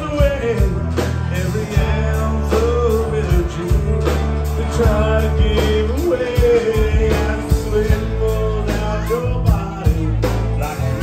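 Live country-rock band playing: acoustic and electric guitars, bass and drums, with a man singing lead.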